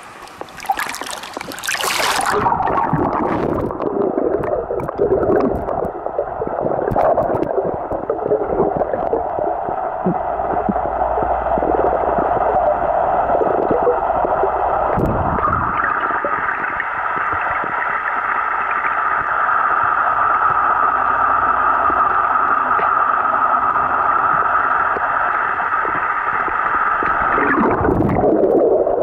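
Underwater camera splashing into a swimming pool, then the muffled gurgling and sloshing of water heard from under the surface. A steady hum joins about halfway through and stops shortly before the end.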